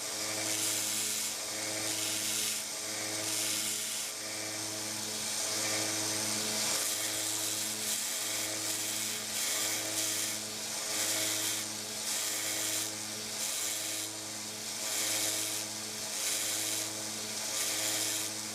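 1x30 belt sander running a coarse 40-grit belt, grinding the wooden butt of a screwdriver handle to a rounder shape. A steady motor hum sits under a rasping sanding noise that swells and fades in repeated passes about every second and a half.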